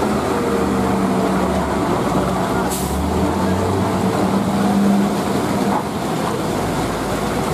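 Vehicle engines running under load up a steep hairpin: a heavy truck close by, then a car climbing, with a steady hum that swells a little about five seconds in. A short hiss comes about three seconds in, and wet-road and rain noise runs underneath.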